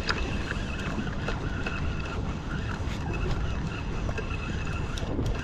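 Motorboat running steadily underway at trolling speed, with a faint steady whine and wind noise on the microphone.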